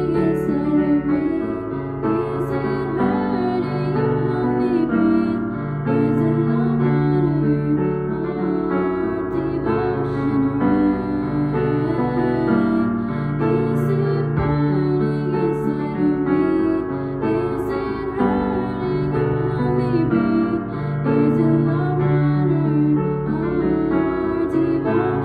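Digital piano playing a slow piece of long held chords, with a girl singing along.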